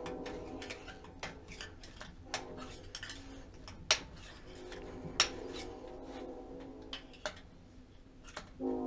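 Hand tools clicking and scraping irregularly in the spark plug tube of a Honda D16 engine while a stuck piece of rubber is fished out. Two sharp clicks, a little under 4 and about 5 seconds in, are the loudest.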